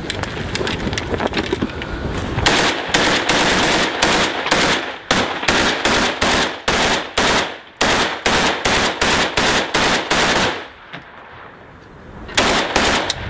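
Close Kalashnikov-type assault rifle fire: rapid shots several a second, softer at first and loud from about two seconds in. The firing stops for about a second and a half near the end, then starts again.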